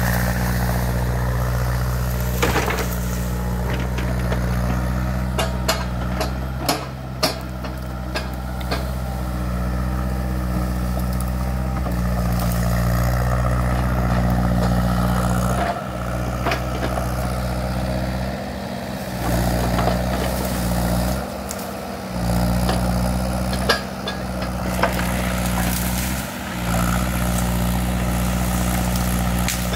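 Case mini excavator's diesel engine running steadily under work, with scattered sharp cracks and snaps of brush and small branches breaking under the bucket.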